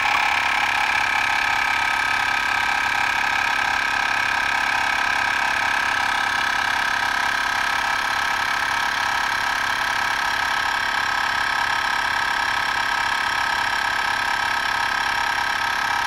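Handpresso Auto Capsule portable espresso machine's pump running steadily with a high, even hum, keeping up the pressure while it extracts an espresso shot from a Nespresso capsule.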